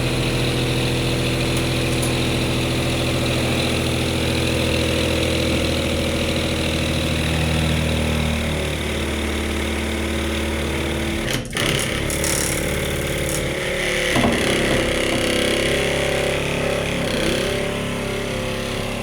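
Homemade battery-powered weed trimmer running with a steady, school-bus-like drone. Its pitch shifts a little partway through, with a brief dip about two-thirds in, and it cuts off suddenly at the very end.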